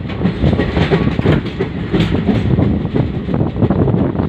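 Train running along the track, heard from a moving carriage: a steady loud rumble with the wheels clattering over the rails.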